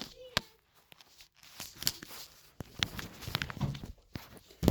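Scattered short plastic clicks, knocks and rustles of a Nerf blaster being handled and reloaded, coming thicker in the second half.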